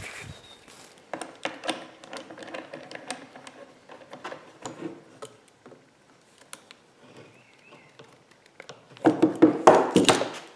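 Handling noise from fitting a brass quick-disconnect coupler onto a pressure washer spray gun: a string of small clicks and metal taps as the fitting and a wrench are worked, then a louder cluster of knocks and clatter near the end.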